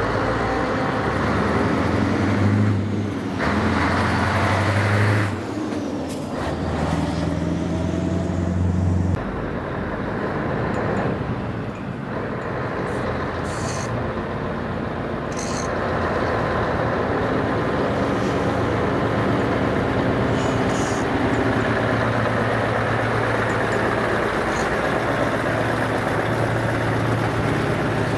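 Scania V8 diesel truck engines running with a deep, steady engine note. The sound changes abruptly about nine seconds in.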